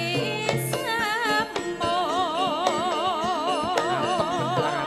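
A Javanese sinden (female singer) singing with wide vibrato over gamelan accompaniment, holding one long wavering note from about two seconds in until near the end.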